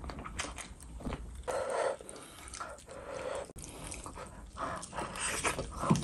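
Close-miked wet eating sounds: a whole roast chicken being pulled apart by hand, with sticky smacking, crackling and chewing.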